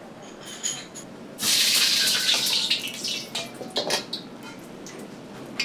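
Water gushing from the wok range's faucet into a wok for about a second and a half, then metal clattering and knocking as the ladle works in the wok.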